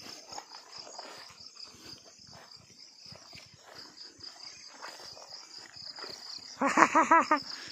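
Insects trilling steadily in rural surroundings. Near the end comes a loud, quavering animal call, under a second long.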